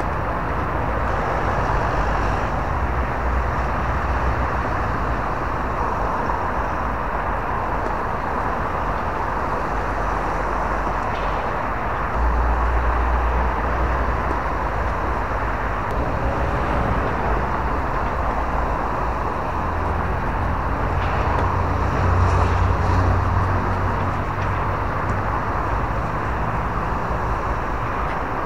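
Steady outdoor background noise, an even rush with a fluctuating low rumble underneath, with a few faint ticks.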